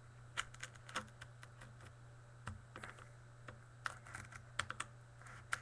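Irregular small clicks and scratches of a blade cutting through the packing tape on a sealed cardboard card box, over a faint steady hum.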